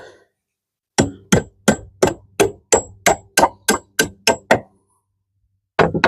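Hammer driving a nail to fasten a roof rake tile: about a dozen quick, even strikes at roughly three a second, each with a short metallic ring, then a pause and two more blows near the end.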